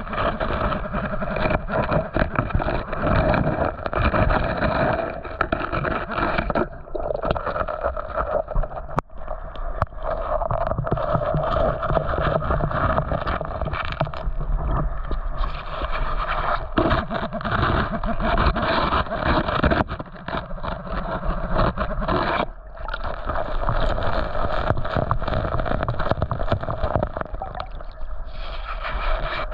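Muffled water sloshing and gurgling close around the microphone, with a steady tone running through it and scattered knocks and scrapes.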